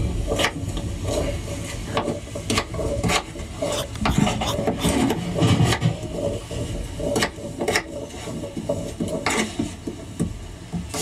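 Kitchen knife slicing potatoes on a wooden chopping board: repeated sharp knocks of the blade on the board and rasping cuts, at an uneven pace.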